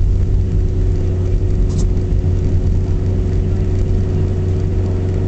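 Car driving on a snow-covered road, heard from inside the cabin: a steady low rumble of engine and tyres, with a faint steady hum above it.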